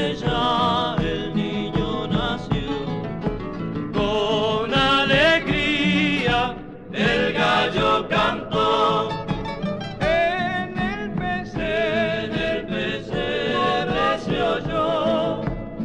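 Recorded Argentine folk music from Salta: voices singing a wavering melody in harmony over guitar accompaniment.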